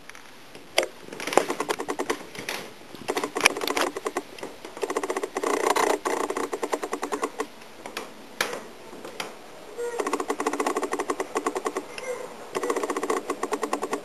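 A cat purring loudly close by, in rapid rhythmic phrases of a second or two with short breaks between them, along with a few sharp taps.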